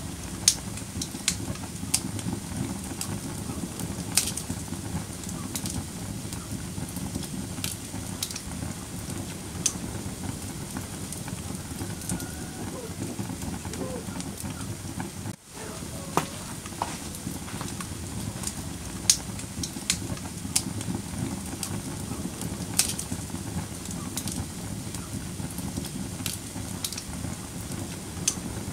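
Wood fire in a fireplace crackling: a steady low rushing noise with sharp pops at irregular moments, a few of them louder. The sound cuts out for a moment about halfway through.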